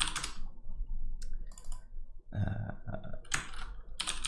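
Typing on a computer keyboard with mouse clicks, in short runs at the start and again near the end. About two and a half seconds in there is a brief low vocal sound from the typist, not a word.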